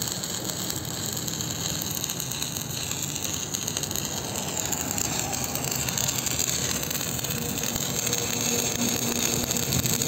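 Stick (shielded metal arc) welding arc burning on a seam of steel tank plate, crackling and sputtering steadily as the coated electrode lays a bead.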